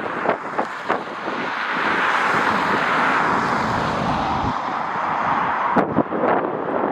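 A jet airliner's engines roar steadily as it passes, building up about two seconds in. Gusty wind buffets the microphone at the start and knocks it sharply twice near the end.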